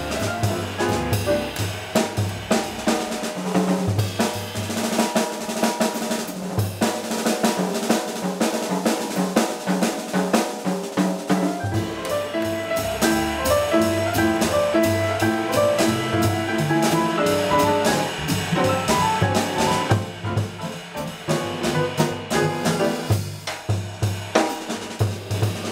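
Live jazz trio of piano, upright bass and drum kit playing a swinging standard, with busy cymbal and snare work prominent over the piano's melody. The bass line falls silent for several seconds, then comes back in.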